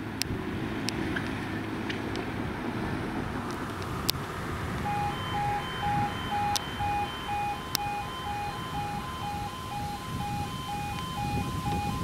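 Automatic half-barrier level crossing warning alarm starting up about five seconds in: a two-tone electronic alarm pulsing about twice a second, the warning that the crossing is closing for an approaching train. Before it, a passing vehicle's engine hum and road noise fade out.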